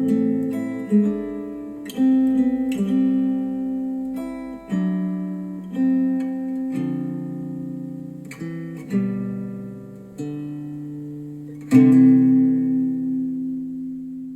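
Acoustic guitar music played back through KEF Q350 bookshelf speakers driven by a NAD C 338 integrated amplifier. Plucked chords come about once a second and fade, with a louder chord near the end left ringing.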